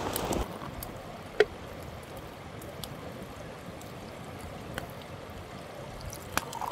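Quiet outdoor ambience: a steady soft rush with a few sharp single clicks, the loudest about a second and a half in. A louder burst of noise cuts off just after the start.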